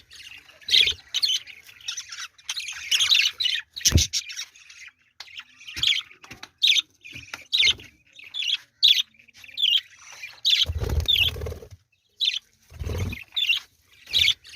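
Budgerigars chirping and chattering in many short, quick calls, with a sharp click about four seconds in and a few dull thumps near the end.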